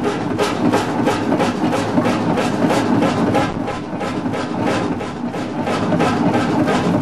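Hundested 45 HP single-cylinder two-stroke hot bulb (semidiesel) engine running steadily, with an even exhaust beat of about three strokes a second.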